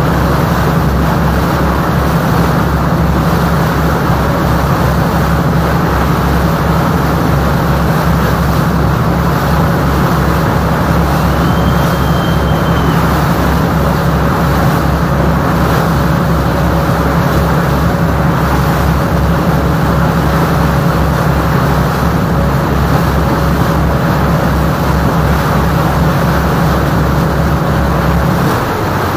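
Chao Phraya Express Boat's diesel engine running loud and steady with a fast, even low throb, over a rushing hiss of water and wind. Near the end the low throb drops away.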